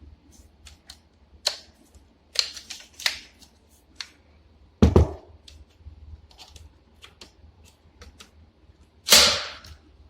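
Plastic and metal clicks and clacks from handling a Craftsman cordless 16-gauge nailer while working out how to load it. There is a loud knock about five seconds in and a longer clatter near the end.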